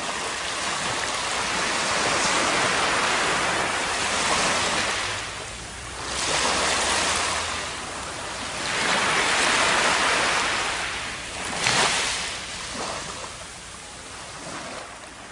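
Surf washing up a sandy beach, the rush of each wave swelling and ebbing about every three to four seconds. A brief sharp crash comes about three-quarters of the way through.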